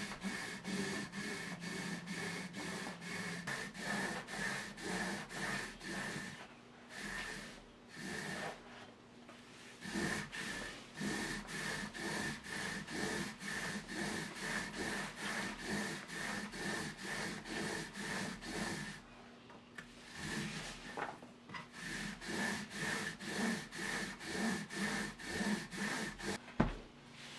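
Raw 6 mm hemp rope sawed back and forth through a steel eye bolt on a wooden board, a rasping rub at about two strokes a second with a few short pauses. The sawing strips off tough strands to soften the rope. One sharp knock comes near the end.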